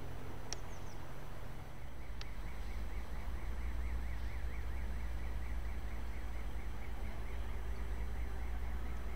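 Diesel train engine idling with a steady low drone that settles to a lower pitch about a second and a half in. Over it a bird chirps briefly under a second in, and a high warbling tone repeats steadily from about two seconds on.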